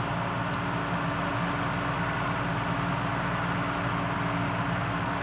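A John Deere harvest machine's diesel engine and drivetrain running steadily, a constant even drone with a low hum.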